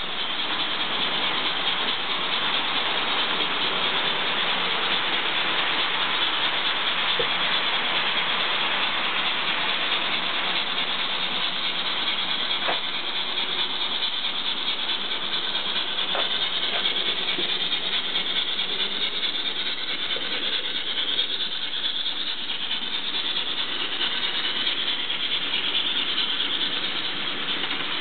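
Model trains running on the layout's track: a steady whirring rumble of small motors and wheels on the rails, with a few faint clicks.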